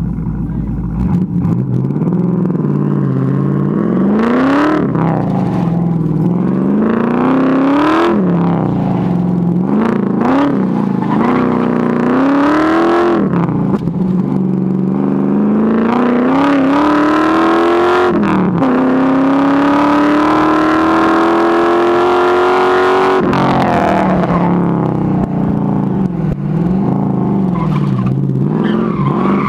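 TVR Griffith 500's 5.0-litre V8 driven hard: the revs climb and fall back again and again, with one long climb of about five seconds that cuts off suddenly when the throttle is lifted. Heard from inside the open-topped car.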